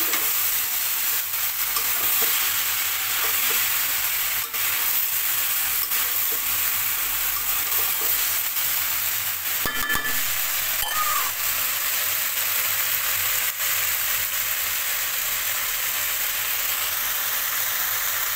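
Mixed vegetable curry sizzling steadily in an open metal wok as the vegetables cook through, with a few short clinks near the middle.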